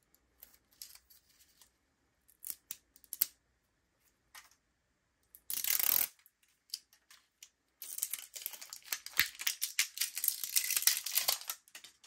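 Plastic wrapping being peeled and torn off a Canon ink cartridge: scattered crinkles, a short tearing rip about halfway through, then a longer spell of dense crinkling and crackling until near the end.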